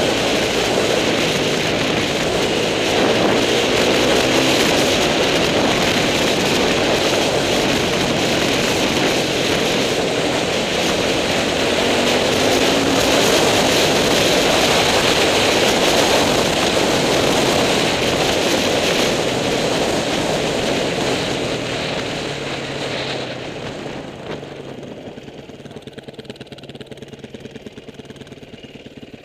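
Trail motorcycle riding along a gravel track: the engine runs steadily under way, mixed with wind rush on the microphone. Near the end it eases off, dropping to a quieter, even beat as the bike slows.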